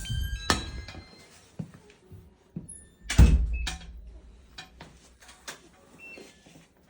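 A door being opened and shut: clicks and latch knocks, with a heavy thud about three seconds in. A few short electronic beeps sound at the very start.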